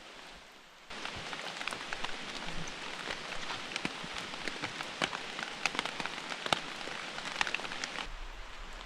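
Steady rain falling, with many sharp, distinct drop hits close by. It starts abruptly about a second in and cuts away abruptly near the end.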